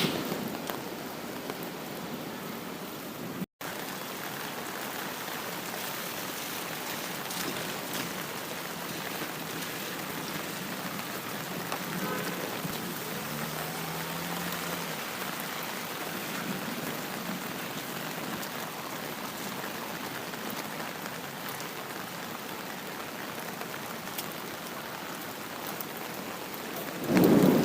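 Steady rain falling, an even hiss that cuts out for an instant about three and a half seconds in. A loud rumble swells up right at the end.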